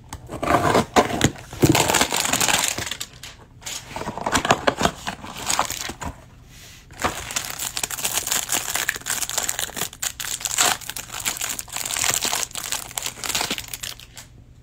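A Panini Donruss Optic football hanger box being torn open and the plastic wrapper around the card stack crinkled and pulled off. It comes in bursts of tearing and crinkling with short pauses.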